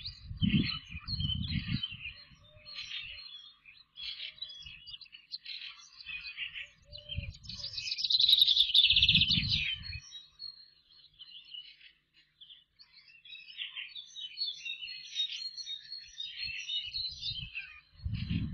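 Small songbirds chirping and singing steadily, with a louder trilled song phrase about eight seconds in. Low rumbles come and go near the start and again about eight to ten seconds in.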